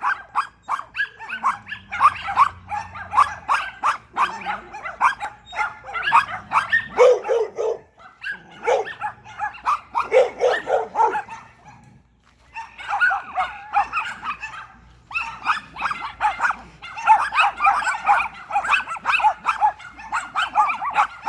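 Several dogs barking continuously at a person, in fast, overlapping runs of barks, with a deeper-voiced dog joining in about a third and halfway through. The barking breaks off briefly twice, then carries on.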